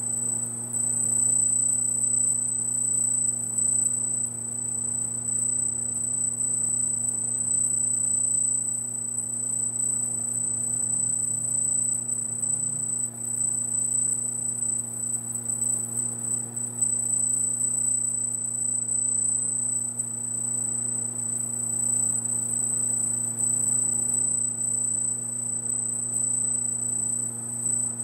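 Laser marking machine engraving lettering onto a metal panel: a steady, high-pitched whine over a low electrical hum.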